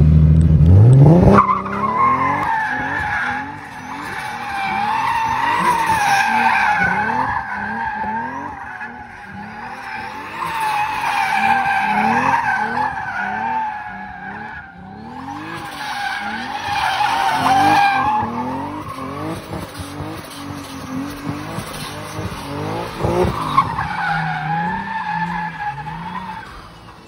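Turbocharged BMW E36 M3 straight-six revving hard, its revs rising and falling rapidly, while the rear tyres squeal continuously through donuts. The squeal and engine swell and fade about every five to six seconds as the car circles, and both die down near the end.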